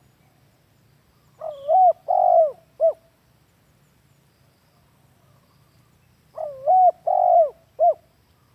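Spotted dove (tekukur) cooing: two call phrases about five seconds apart, each of three coos, the last one short.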